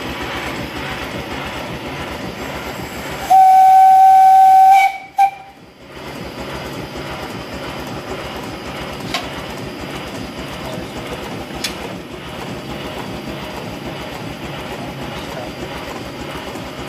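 7¼ inch gauge Tinkerbell miniature steam locomotive running in steam with a steady, fast, regular beat and hiss. About three seconds in its steam whistle is blown loud and steady for about a second and a half, then once more briefly.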